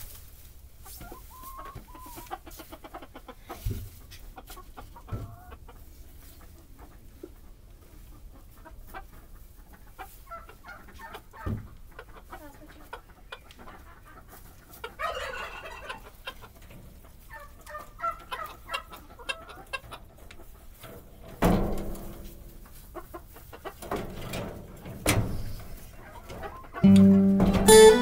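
Chickens clucking in a coop, with a rooster crowing once about halfway through and a few knocks. Acoustic guitar music comes in loudly about a second before the end.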